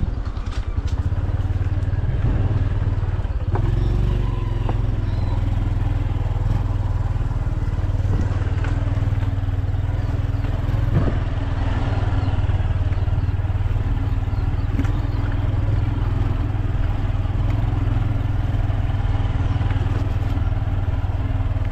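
A motorcycle engine running at a steady pace as it is ridden along a rough dirt road, a low drone with a few knocks from the bumps.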